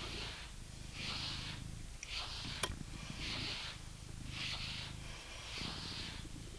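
A pet brush drawn through the dense coat of a British Shorthair cat in repeated strokes, each a short rasping hiss, about one a second, with a single sharp click midway.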